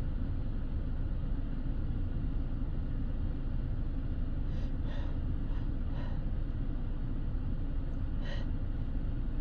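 A steady low rumble runs under a few faint, short, sharp inhalations: a cluster about halfway through and one more near the end. These are the catching breaths that build up to a sneeze.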